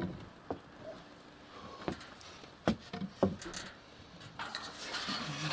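A few soft, scattered knocks with some rustling: a handheld camera being moved and handled.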